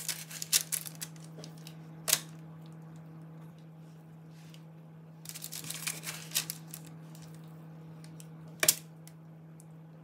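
Light clicks and taps of handling: a cluster at the start, a sharp single click about two seconds in, another cluster a little past the middle, and a last sharp click near the end, over a steady low hum.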